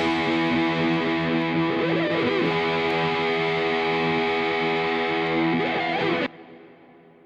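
Background music: a held, distorted electric guitar chord that cuts off suddenly near the end and rings away into silence.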